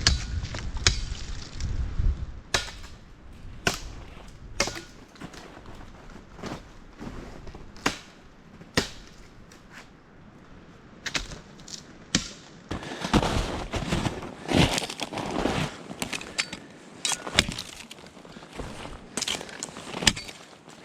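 Tactical trench shovel's blade chopping dry branches: irregular sharp strikes on wood, a second or more apart.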